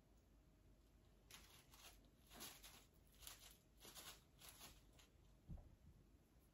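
Faint rustling and crinkling as artificial flower stems and leaves are handled, in a run of short bursts, followed near the end by a soft thump as something is set down.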